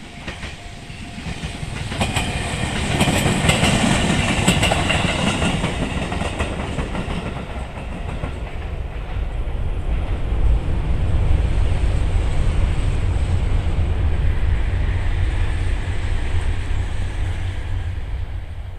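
Train passing with its wheels clacking over rail joints in the first few seconds. A Shinkansen then passes with a steadier low rumble, which fades near the end.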